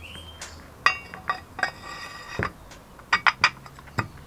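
Steel bench vise parts clinking and knocking as the sliding jaw is handled and pushed in: a series of sharp metallic clinks, one of them ringing on briefly about two seconds in.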